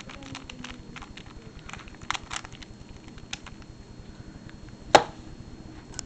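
Plastic 3x3x3 Rubik's cube layers being turned quickly by hand, a fast run of small clicks and clacks in the last turns of a solve. About five seconds in comes a single loud knock as the cube is set down on the table.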